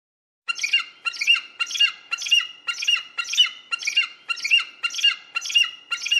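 Eagle calling: a run of about eleven sharp, shrill calls, evenly spaced at about two a second, each falling slightly in pitch. The calls begin about half a second in.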